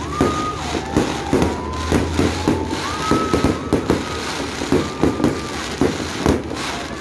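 Fireworks display: an uneven run of sharp bangs and crackles from shells and comets launching and bursting, several a second, with a few short whistles over it.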